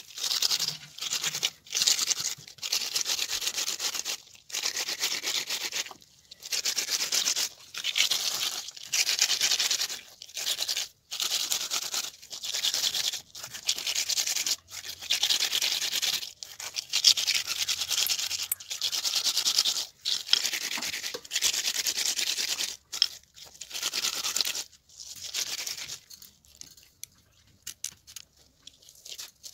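Whole tilapia scrubbed with salt against a rough stone slab to take off the scales: a gritty rasping in repeated strokes of about a second each with short pauses between. The scrubbing stops about 26 seconds in, leaving a few faint clicks.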